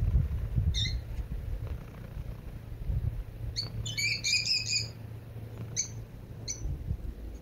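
Domestic cat purring, a low rumble close to the microphone, with small birds chirping over it: a single chirp about a second in, a quick run of chirps about halfway through, and two more short chirps near the end.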